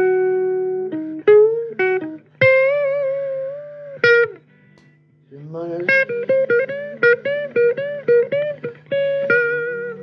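Guitar playing a blues lead line: single plucked notes with string bends, a short pause a little under halfway through, then a quick run of notes.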